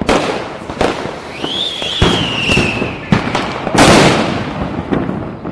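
Diwali firecrackers bursting: a string of sharp bangs, the loudest about four seconds in, with a whistle that rises and then slowly falls in the middle.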